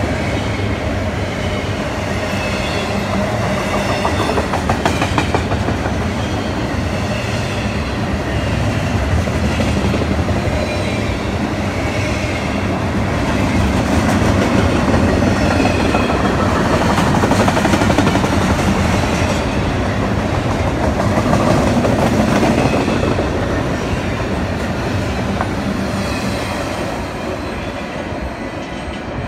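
Union Pacific double-stack intermodal freight cars rolling past close by, a steady rumble of wheels on rail with faint clicking over the joints. The sound eases off near the end as the last car goes by.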